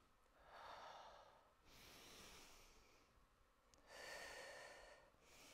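A woman breathing slowly and audibly, faint: four breaths in and out, each about a second long, with short gaps between.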